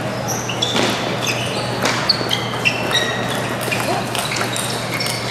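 Table tennis rally: the ball clicking sharply off the paddles and table in quick exchanges, with short high squeaks of shoes on the court floor.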